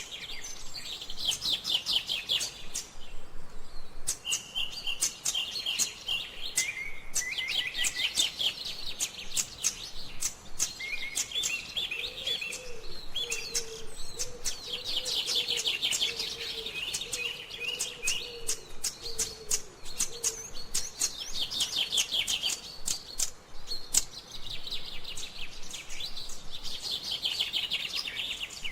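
Small songbirds chirping, with many quick trilled phrases overlapping and following one another. A faint low steady tone sounds from about twelve to twenty seconds in.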